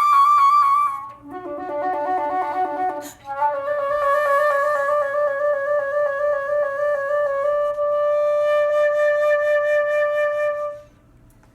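Solo flute: a fast trill on a high note, a short break, a quick run of rapid low notes, then one long held note that ends the piece and stops about eleven seconds in.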